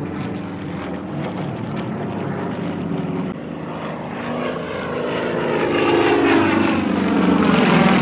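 Propeller airplane's engine running, growing louder as it passes close by, its pitch falling in the second half.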